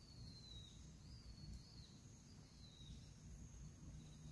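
Near silence: faint rural outdoor ambience, a low rumble with a few faint high whistled glides.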